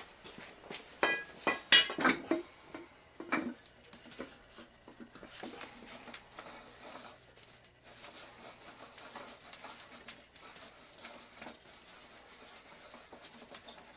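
Several sharp metal clanks and clinks, some with a brief ring, in the first three seconds or so as the steel tire-changer parts and tools are handled. Then faint, irregular rustling and handling noise as the wheel on the changer's spindle is worked by hand.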